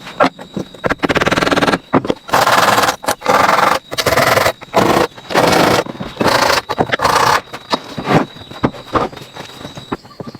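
A run of about eight rhythmic scraping strokes, each about half a second long, followed by a few sharp clicks and knocks near the end.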